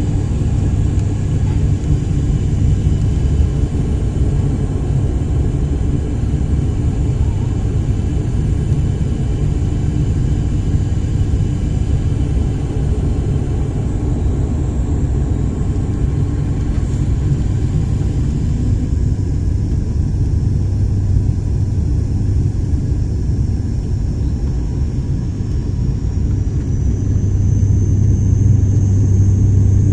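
Propeller plane engines and propellers droning steadily, heard inside the cabin as a loud, deep, even hum. It swells slightly near the end.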